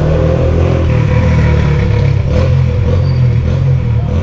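Motor vehicle running on the road: a steady low rumble with some light clatter.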